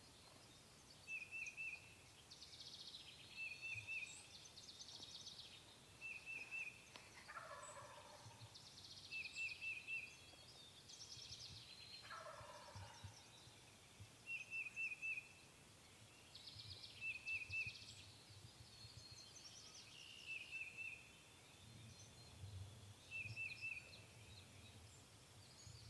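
Faint wild turkey gobblers gobbling several times, often two calls close together. A small bird's short triple chirp repeats about every two seconds throughout.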